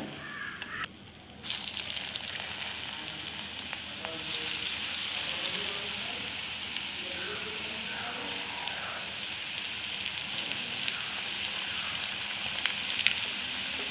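Hot oil sizzling steadily in a kadai as a batch of stuffed sweet pastries (madhura ada) deep-fries. The sizzle starts suddenly about a second and a half in, as the raw pastries go into the oil, and grows a little stronger around four seconds in.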